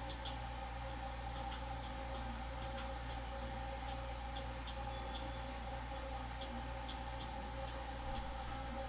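Faint, tinny ticking of a beat's hi-hats leaking from true wireless earbuds playing music, several ticks a second, over the steady hum of an air conditioner.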